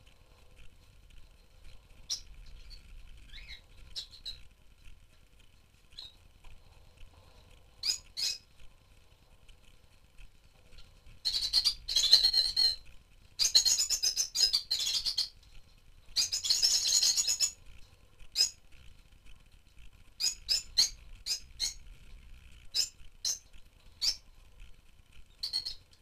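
Rosy-faced lovebirds calling: scattered short, sharp chirps, with three stretches of dense chattering in the middle, which are the loudest part.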